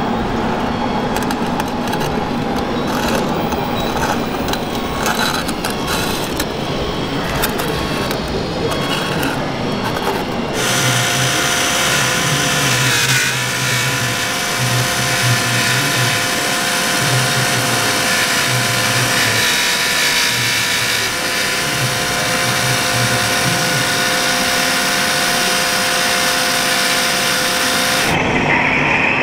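Radio-controlled scale model farm machines running, their small electric motors and gearboxes whining. About ten seconds in the sound switches abruptly to a steadier whine with several held tones and a low pulsing beneath, from a model self-propelled forage harvester working beside a model truck.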